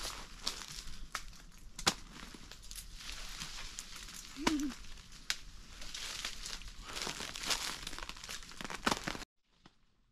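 Continuous crinkling and rustling with many scattered sharp clicks, cutting off suddenly about nine seconds in.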